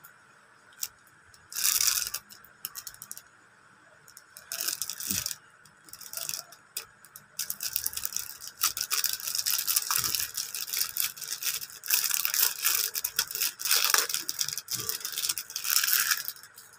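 Small clear plastic packet crinkling and rustling as it is handled and opened by hand. There are two short bursts early on, then near-continuous crinkling through most of the second half.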